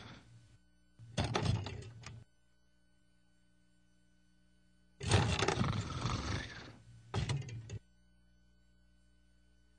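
A man snoring loudly in separate rough breaths: the end of one snore at the start, another about a second in, then a long snore about five seconds in followed at once by a short one, with quiet between.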